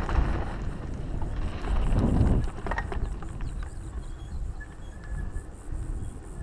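Wind buffeting an action camera's microphone on a moving mountain bike, with tyre noise as it rolls off a dirt trail onto a paved road. There is a louder rumble about two seconds in.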